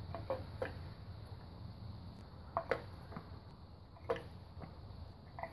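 Sharp plastic clicks and light knocks, several of them in quick pairs, as ignition coil packs are set into the spark plug wells of a Toyota 1ZZ-FE engine's valve cover.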